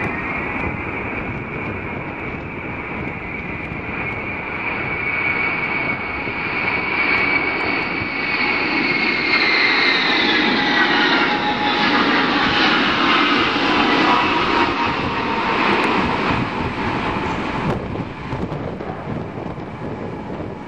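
Ilyushin Il-76 four-engine jet transport passing close by: steady turbofan whine over a broad rumble that grows louder, the whine sliding down in pitch as the aircraft goes past. The sound changes abruptly near the end.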